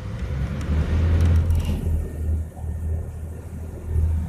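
A passenger boat's engine running with a steady low rumble as the boat comes alongside the jetty, heard from on board. A louder rushing noise rides over it for about the first two seconds, then eases.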